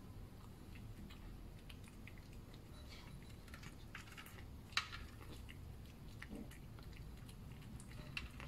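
Cat chewing wet food: a run of faint, soft clicks and smacks that grows busier about three seconds in, with one sharper click a little under five seconds in.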